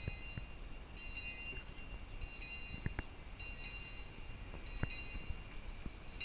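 A small narrow-gauge train approaches slowly with a low rumble. A high ringing sound repeats in pairs about once a second, and there are a few sharp clicks.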